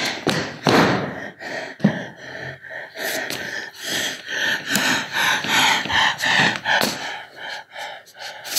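A man gasping and panting loudly for breath in ragged, irregular gasps, with an occasional thump of movement on the stage floor: acted gasps of a dying man in the throes of heart failure.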